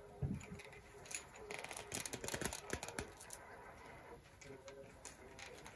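Faint small clicks and handling noises of pliers working a thin wire, a quick run of ticks in the middle.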